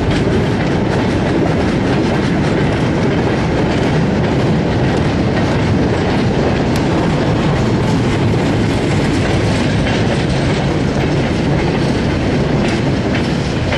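A train of four-wheeled goods wagons rolls past at close range: a steady, loud rumble with wheels clicking over the rail joints.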